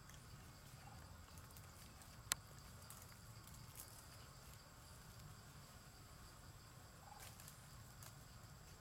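Near silence: faint outdoor ambience with a steady high-pitched insect drone over a low rumble, broken by one sharp click a little over two seconds in.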